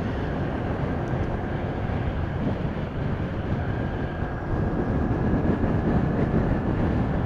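A motorcycle cruising steadily at highway speed: wind rushing over the microphone over a low, even drone of engine and road noise.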